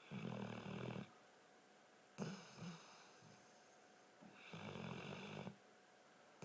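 Weimaraner snoring: two snores of about a second each, roughly four seconds apart, with a short snort between them.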